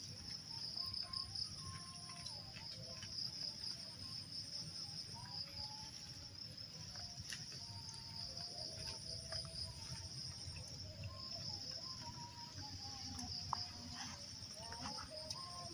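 Steady, high-pitched chirring of insects, an unbroken chorus.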